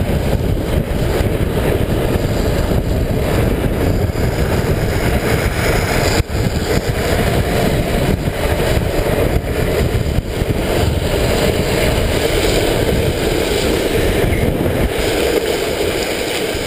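Steady wind rush on the microphone mixed with the rumble of a drift trike's wheels rolling on asphalt during a fast downhill run, with one sharp knock about six seconds in.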